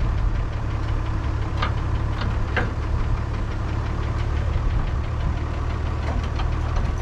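International 1256 tractor's six-cylinder diesel engine idling steadily, with an even low firing rhythm. A few short high chirps come through between about one and a half and two and a half seconds in.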